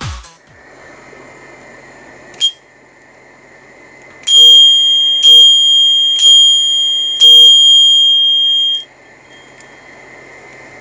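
Daiso aluminium ring-type bicycle bell struck four times, about once a second. Each strike rings on with a clear high tone, and the ringing is cut off suddenly after the last one. A single short click comes a couple of seconds before the first strike.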